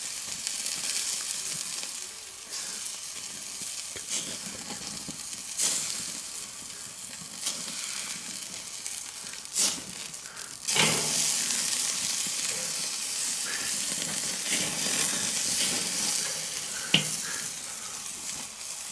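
Duck breast sizzling and crackling as it is seared over glowing charcoal on a kettle grill, with a few sharp clicks of metal tongs against the grate. About eleven seconds in the sizzle jumps louder as dripping duck fat flares up in the embers.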